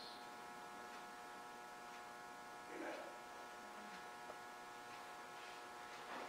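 Faint, steady electrical mains hum with many evenly spaced overtones, and a brief faint sound about three seconds in.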